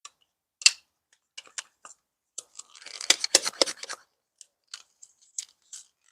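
Hard plastic parts of a foam blaster clicking and scraping as they are handled and fitted together: scattered sharp clicks, with a quick run of clicks and rubbing about three seconds in.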